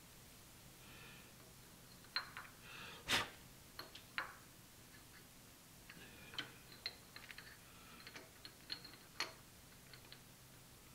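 Scattered light metallic clicks and taps as a ductile-iron gland nut is turned and set back into a milling-machine vise against a parallel. The sharpest knock comes about three seconds in, and a second run of smaller taps follows a few seconds later.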